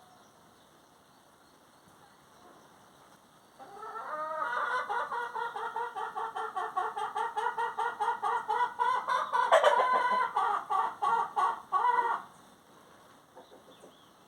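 A chicken cackling: a long run of loud, rapid, pulsed calls lasting about eight seconds, starting suddenly and cutting off abruptly.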